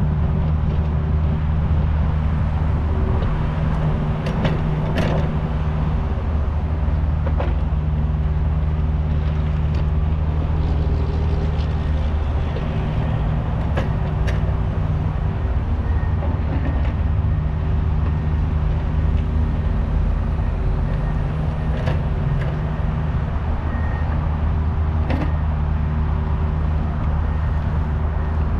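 Kubota U55 mini excavator's diesel engine running steadily while digging, with a few sharp knocks scattered through.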